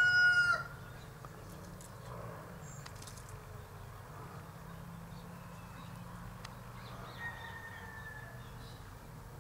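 The end of a rooster's crow, a long held note that cuts off about half a second in, then quiet outdoor background with a steady low hum and a few faint bird calls.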